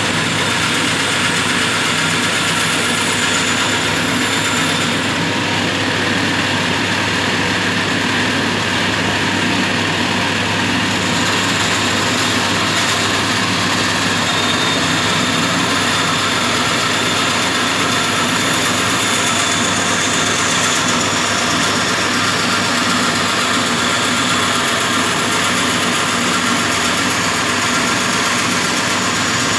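Homemade bandsaw with wooden wheels running steadily while its blade cuts through a thick wooden block, the motor hum and the sawing noise holding an even level throughout.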